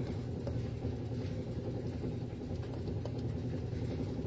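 A steady low mechanical hum, with no clear event standing out.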